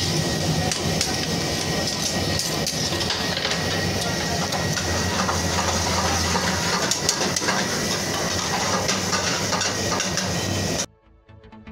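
Commercial kitchen stove: gas burners running under karahi woks with a steady low rumble, oil and gravy sizzling, and a metal spatula clinking and scraping against the wok now and then. The sound cuts off suddenly near the end.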